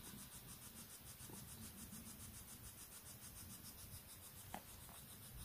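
Near silence: faint background hiss with a faint, rapid high ticking about six times a second, and one faint click about four and a half seconds in.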